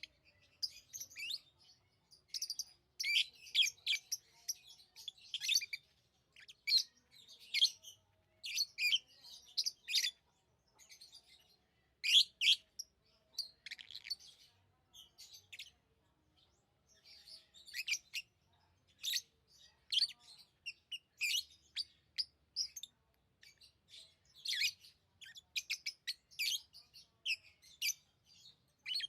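Pet lovebirds chirping: a busy, irregular run of short, high, sharp chirps and calls in clusters, with brief pauses between them.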